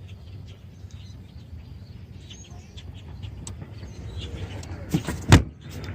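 A steady low hum with faint bird chirps, then two sharp knocks close together near the end, the second louder.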